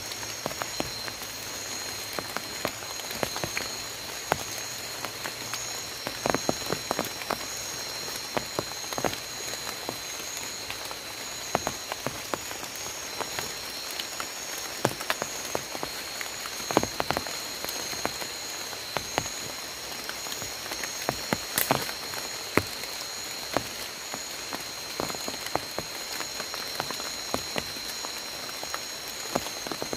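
Light drizzle in rainforest: scattered drops ticking on leaves and the tent, over a steady high-pitched frog chorus.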